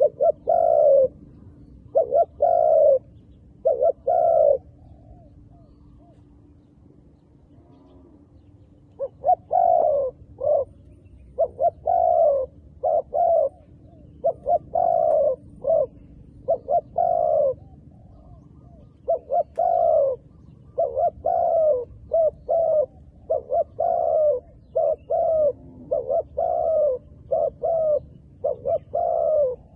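Dove cooing: short coo notes repeated in quick groups. After a few coos there is a pause of about four seconds, then a long, faster run of coos.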